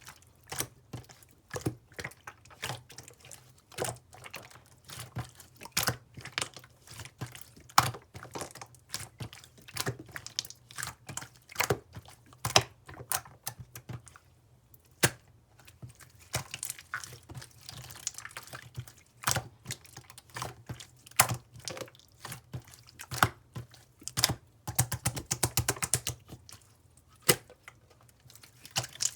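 Purple jelly slime being squeezed and pressed by hand, making irregular sharp wet clicks and pops, with a quick run of crackles near the end.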